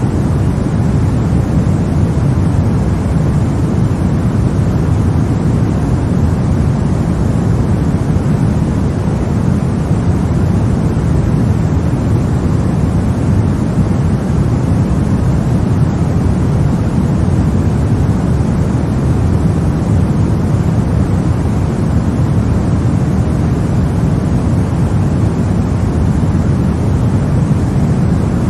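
Steady white noise for a baby's sleep, a deep, even rush with most of its weight low down and no change from start to finish.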